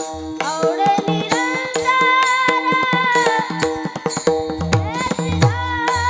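Devotional Marathi abhang singing: a voice holds a long, ornamented note, over tabla strokes and a steady drone.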